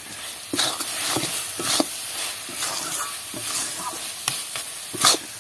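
Metal spatula scraping and stirring a thick carrot-and-milk mixture with fried peanuts in a metal kadai, in repeated strokes about two a second, over the sizzle of the cooking mixture. The loudest scrape comes near the end.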